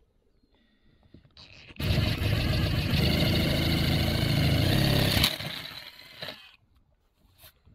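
DeWalt 20V cordless drill with a spade bit boring down through an RV roof membrane, to meet a pilot hole drilled up from below. The motor starts about two seconds in, runs steadily under load for about three and a half seconds, then winds down.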